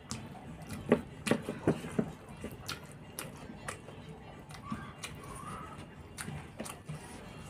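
Close-up eating sounds: wet chewing smacks and fingers mixing rice and curry on a plate. They come as a run of irregular clicks, loudest in a cluster about one to two seconds in.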